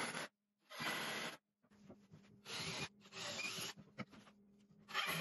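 Cordless driver running screws down into the wooden top boards in a series of short bursts, each about half a second.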